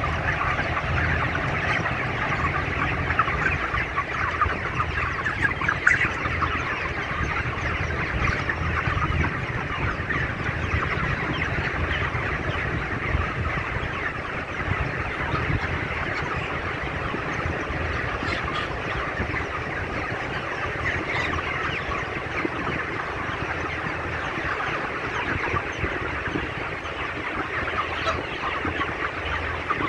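A flock of 35-day-old broiler chickens clucking and chattering continuously. A low hum sits under the flock noise and is clearest in the first several seconds.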